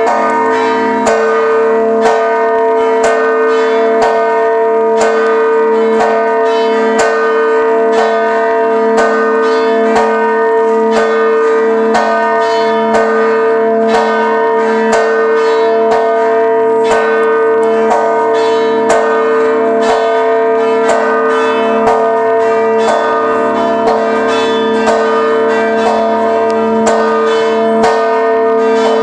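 Haż-Żabbar parish church bells ringing a peal for a procession: several bells struck over and over in a dense, even rhythm of about two strikes a second, with one deep bell tone humming under the rest.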